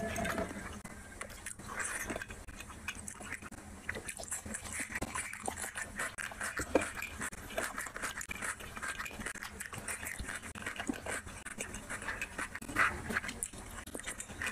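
Fingers squishing and mixing rice and curry on a ceramic plate, with close wet chewing and lip-smacking of eating by hand, and a dense run of small wet clicks and a couple of sharper ones.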